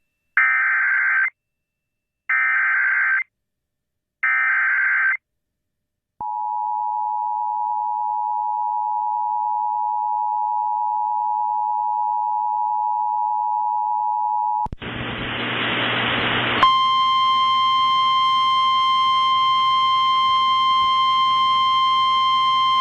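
Emergency Alert System alert tones: three short screeching bursts of header data about a second apart, then the two-note attention signal held for about eight seconds. This is followed by about two seconds of hiss and a steady buzzy tone with many overtones that runs on.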